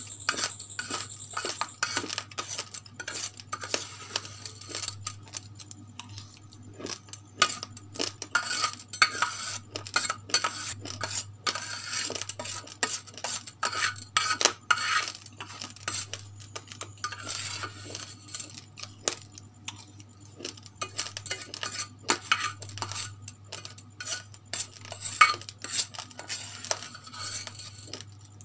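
Metal spoon scraping and clinking across a stainless steel plate as it gathers up scattered raw rice grains, in many quick irregular scrapes and clicks.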